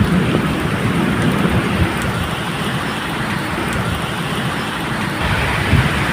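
Steady medium rain, with a low rumble of distant thunder underneath that swells slightly about a second in and again near the end.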